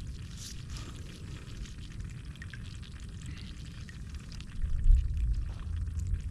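Water trickling and dripping at the river surface around a wading fisherman and his lifted crab net, with a low rumble underneath that grows louder about four and a half seconds in.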